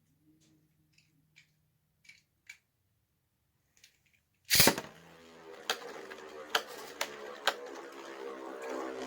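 Faint scattered clicks, then 3D-printed Beyblade spinning tops landing with a loud sharp clack about four and a half seconds in. A steady whirring hum follows as the tops spin, broken by several sharp clacks as they collide.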